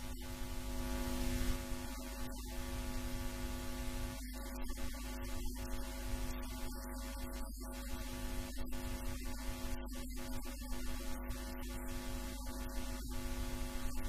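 Steady electrical hum with hiss, a constant buzz-like tone that does not change.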